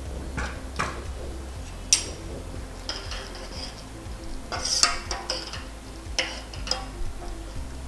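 Metal spoon stirring a stainless steel pot, clinking sharply against its sides about eight times at uneven intervals, over soft background music.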